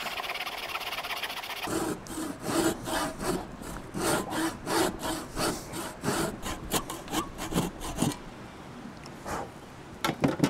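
Hand saw cutting a dry, dead stick: a steady fine rasp at first, then back-and-forth sawing strokes about three a second, stopping about eight seconds in. A few light knocks follow near the end.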